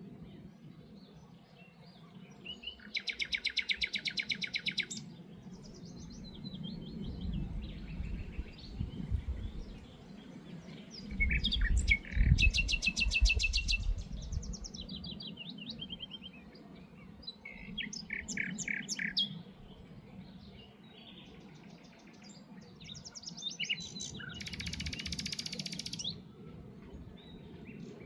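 Several songbirds singing in short separate phrases, with fast rattling trills the loudest about three, twelve and twenty-five seconds in. A low wind rumble on the microphone swells and fades beneath them.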